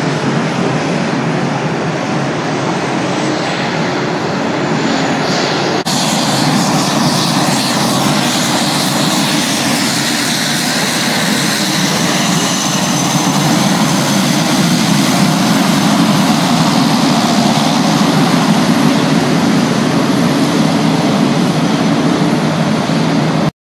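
Pilatus PC-21 trainer's PT6A turboprop engine and propeller running steadily at taxi power. The sound cuts off suddenly near the end.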